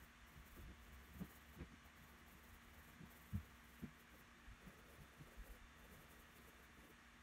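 Near silence with a steady low hum and hiss, broken by several faint soft knocks of a wooden pencil and drawing hand against paper on a board, the strongest about halfway through.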